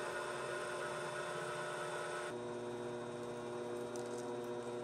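Small benchtop metal lathe running steadily while a drill bit in the tailstock chuck drills into the spinning metal bar: a steady motor hum and whine. The pitch pattern changes abruptly a little over two seconds in.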